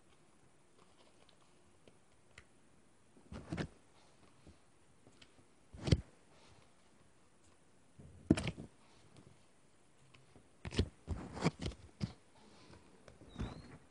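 Handling noise from a hand touching and moving the phone that is recording: a few separate knocks and scrapes every couple of seconds, then a quick run of them near the end.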